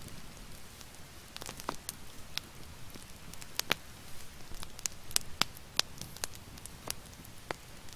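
Campfire crackling: irregular sharp pops and snaps, a dozen or more over a few seconds, some much louder than the rest.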